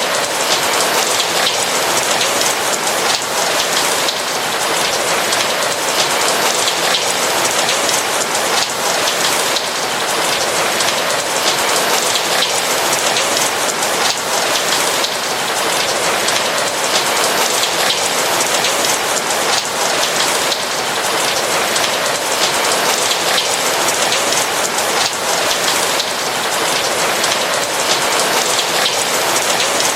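Steady rain falling on a roof, a dense even patter of raindrops with no thunder or pauses.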